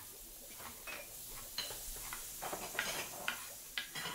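Faint, irregular light clicks and clinks, a scattering of short ticks spread through a few seconds.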